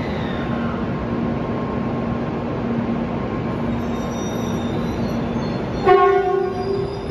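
N700A Shinkansen train's typhon horn sounding one blast on departure, a single steady tone about six seconds in. Before it, a steady hum from the train standing at the platform.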